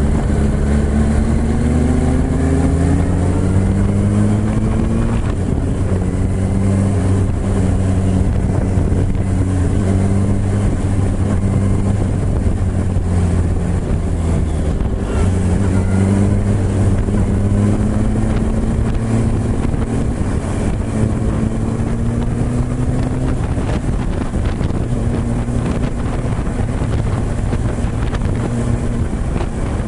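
2007 Yamaha YZF-R1's inline-four engine and exhaust under way. Its pitch climbs in several pulls as it accelerates, dropping back at each gear change, then runs at steadier revs.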